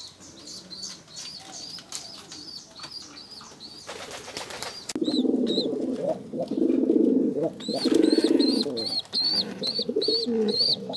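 Pigeons in a nest box: a squab's high peeps repeat about twice a second, and about four seconds in there is a short burst of wing flapping. From about five seconds on there are loud, low, pulsing calls from the pigeons close by.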